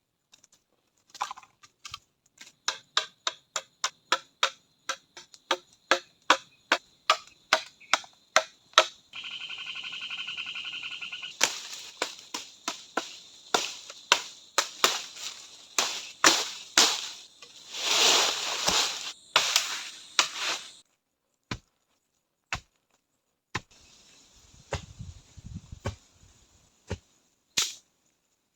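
A run of sharp, evenly spaced knocks, about two to three a second, then a few seconds of steady hissing noise. After that come more irregular knocks and strikes, the loudest a few seconds before the end of the busy stretch, then only a few scattered single knocks.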